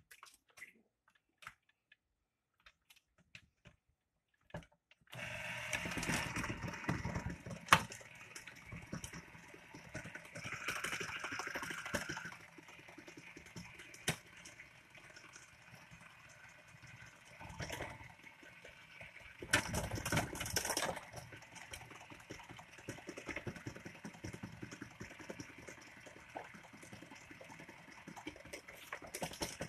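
Electric stand mixer switched on about five seconds in after a few faint clicks, its motor running steadily while the twin beaters whip cream cheese and crushed pineapple in a stainless steel bowl. The noise swells at times as the beaters churn the thickening mixture.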